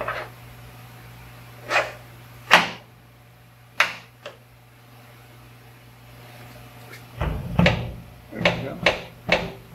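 Scattered knocks and clicks of metal lift parts being handled as the cable is fitted over the pulley sheave at a four-post car lift's hydraulic cylinder, a few single knocks and then a quicker run of them near the end, over a steady low hum.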